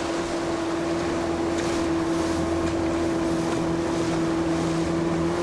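Motor of a small inflatable boat running at a steady speed, a constant hum that doesn't change in pitch, with wind and water noise around it.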